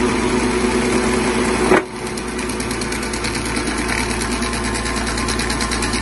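Heavy-equipment engine running steadily under tree-removal work. Its sound changes abruptly about two seconds in, after which a fast, even ticking rides on top of it.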